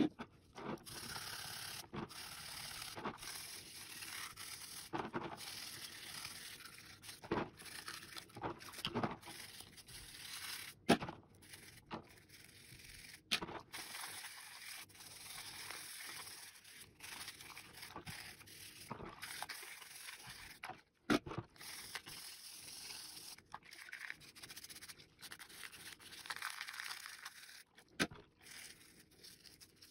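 Toothbrush scrubbing the plastic shell parts of a SteelSeries Sensei 310 gaming mouse in a bowl of soapy water: a steady wet scrubbing and rubbing hiss, broken by irregular sharp knocks.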